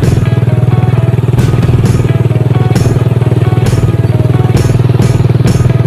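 Motorcycle engine running steadily while riding along a road, its fast firing pulses close and loud.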